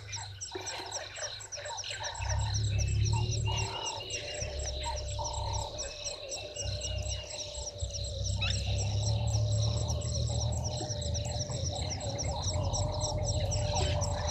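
Natural dusk chorus of frogs calling, with short bird chirps and a fast, even high ticking of insects. Under it a low rumbling noise swells and fades.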